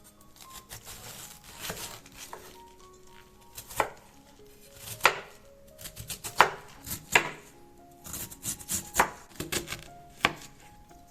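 Kitchen knife chopping vegetables on a cutting board, in irregular strokes with a few louder chops through the middle and later part.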